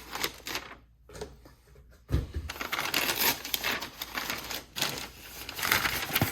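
Cardboard box and packaging being handled and opened by hand: a knock about two seconds in, then rapid clicking and crackling of cardboard and paper.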